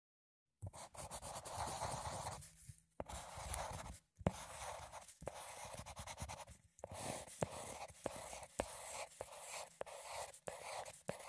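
Faint scratchy rustling and scraping with scattered sharp clicks: rubber-gloved hands handling plastic measuring cups and spoons of flour on a stone countertop.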